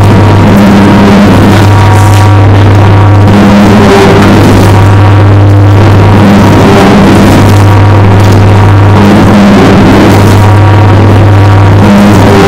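Motor drive of a handmade wood-and-fibreglass tanning tank running just after being switched on, turning the paddle through the bark-extract tanning liquid. It makes a loud, steady mechanical hum with a noisy wash over it.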